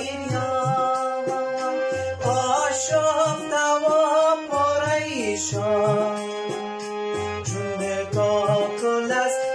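A man singing a Persian-language song with a wavering, held voice, accompanied by an electronic keyboard playing over a steady low beat.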